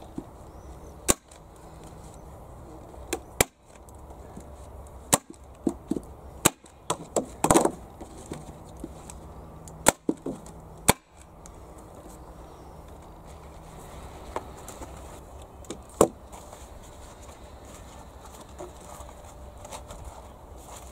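Hand staple gun firing staples through plastic sheet into a wooden box: about a dozen sharp snapping shots at uneven intervals, bunched in the first half, with one last shot a few seconds later.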